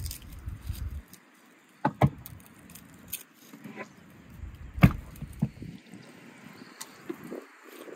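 A few knocks and thuds on a wooden table as a raw lamb carcass and its tray are set down, the loudest a single heavy thud about five seconds in. A low rumble in the first second.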